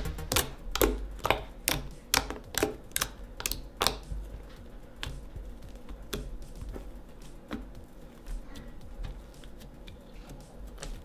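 Fingers poking, pressing and folding a large mound of fluffy shaving-cream slime, making sharp sticky clicks and pops. The clicks come quickly for about the first four seconds, then grow sparser and fainter.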